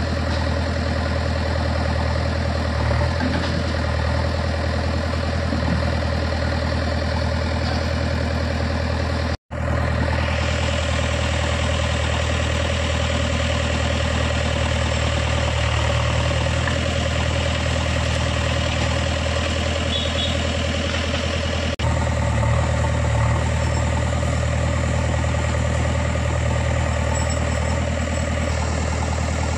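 Heavy diesel machinery idling steadily, a low even engine hum with no revving. The sound cuts out for a moment about nine seconds in.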